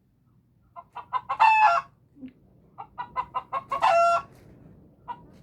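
A hen cackling twice: each time a run of quick clucks leading into one longer, drawn-out squawk.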